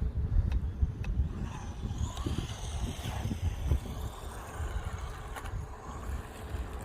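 Wind rumbling on the microphone over the faint running of a WLtoys 144001 1:14-scale electric RC buggy being driven on the ground, with a few light ticks.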